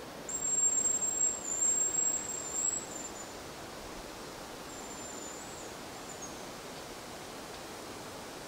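Hazel grouse decoy whistle blown close by: a thin, very high whistle held for about a second, then a few shorter slightly falling notes, lasting about three seconds in all. A fainter, shorter high whistle follows about five seconds in, over a steady forest hiss.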